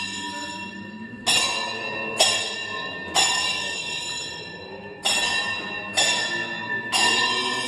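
A struck metal bell or gong ringing out in a steady beat of about one stroke a second, six strokes with one beat missing near the middle, each ringing on until the next. It keeps time for a devotional sankirtane around the tulasi.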